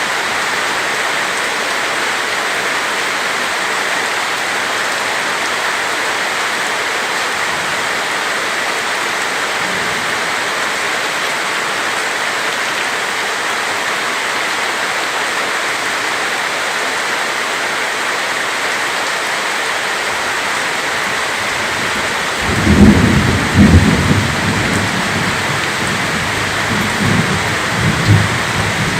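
Heavy rain pouring steadily. About three-quarters of the way in, thunder breaks in with a deep rolling rumble that lasts several seconds, loudest at its start and surging again near the end.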